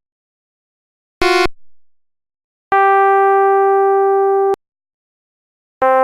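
Nokia 3128 ringtone tones played as synthesized electronic notes: a short beep about a second in, a steady held tone of about two seconds, and another short beep near the end, with silence between them.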